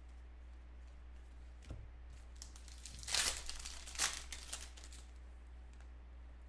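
Foil trading-card pack wrapper torn open and crumpled by hand: a light knock, then loud crinkling about three seconds in with a second peak a second later, fading out by about five seconds.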